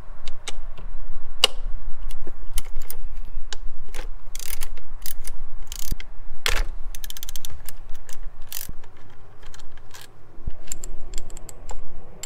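Socket ratchet clicking as it backs out the 12 mm bolts holding the bypass valve to a top-mount intercooler: sharp clicks in short runs, with a fast run of clicks about seven seconds in.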